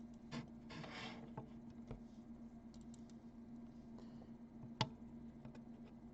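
Faint scattered clicks and taps from handling soldering work at the bench, with a brief scrape about a second in and one sharper click nearly five seconds in, over a steady low hum.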